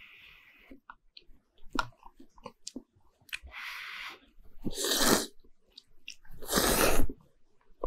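A person slurping thick noodles from a bowl of beef noodle soup: three noisy slurps in the second half, the last the loudest, with small wet chewing smacks in between.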